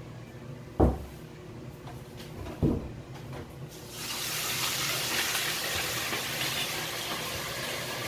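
Two dull knocks, then about four seconds in a loud, steady sizzle starts as boiled pork leg goes into hot oil in a pot, deep-frying for crispy pata.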